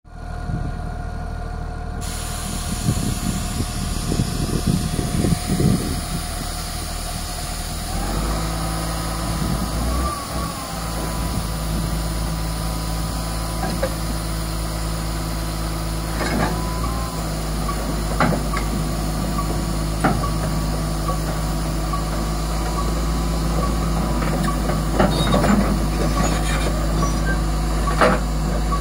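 Komatsu D85EX crawler dozer's six-cylinder diesel engine running. It steps up to a steadier, louder drone about eight seconds in as the dozer starts to creep backward along the lowboy deck. Sharp clanks come now and then in the second half.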